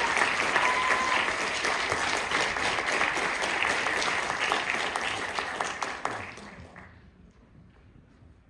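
Audience applauding, a dense patter of clapping that thins out and dies away about six to seven seconds in.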